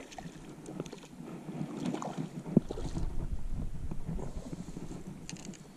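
Small irregular splashes and water sloshing from a hooked trout thrashing at the surface close to shore as it is reeled in, over light wind noise on the microphone.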